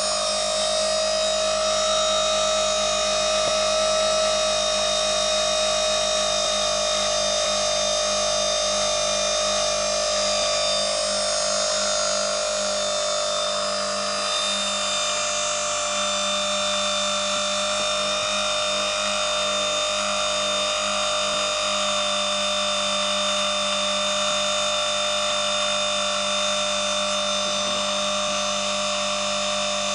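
Brushed (collector) electric motor running steadily at speed, with a constant whine; its pitch settles slightly lower about halfway through.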